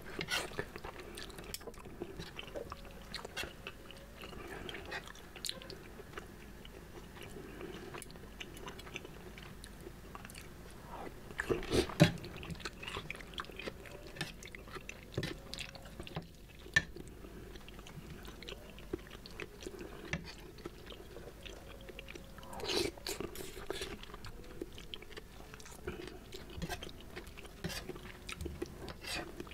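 Close-miked chewing and wet mouth sounds of a man eating seblak with macaroni in spicy broth, with a few sharper clicks and knocks, the loudest about twelve seconds in.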